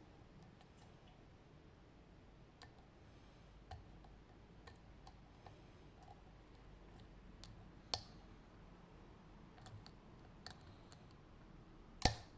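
Lock pick working the pins of an ASSA Maximum+ Restricted pin-tumbler cylinder during picking: scattered faint ticks, a sharp click about eight seconds in and a louder one near the end.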